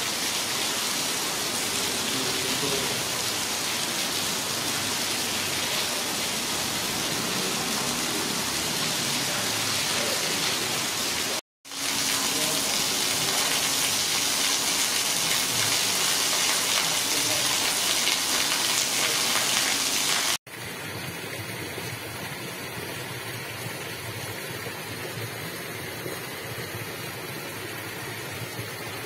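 Heavy rain falling, a steady loud hiss, broken by a brief silence about eleven seconds in. After about twenty seconds it gives way to a quieter, steady background hiss.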